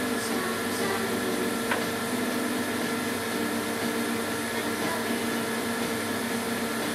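CDC 9-track tape drive running, its rebuilt air pump giving a steady whir with an even hum. A single click sounds a little under two seconds in.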